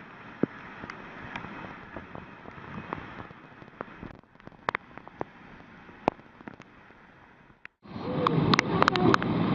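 Rushing floodwater with scattered sharp knocks and clicks. It breaks off twice and comes back much louder about eight seconds in.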